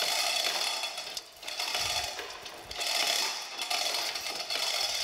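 Chain hoist on a gantry crane lowering a heavy band saw, running in several short spurts with brief pauses between them.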